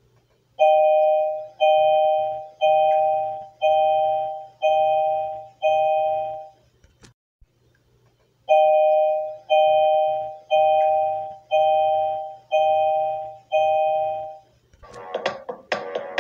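An electronic chime tone, two notes sounding together, rung about once a second: six rings, a short pause, then six more, each fading away. Near the end a louder beat begins.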